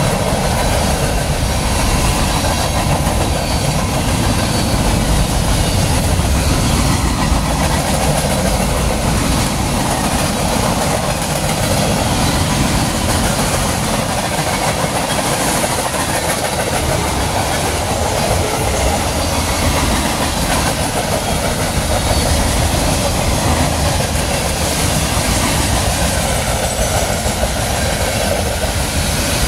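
Freight cars of a long Norfolk Southern freight train rolling past close by: boxcars, tank cars and gondolas making a loud, steady noise of steel wheels running on the rails.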